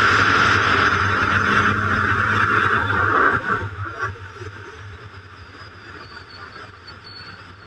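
Motorcycle riding at speed, heard from a helmet camera: a steady engine hum under loud wind rush. About three and a half seconds in, the wind noise falls away sharply, leaving a quieter engine hum.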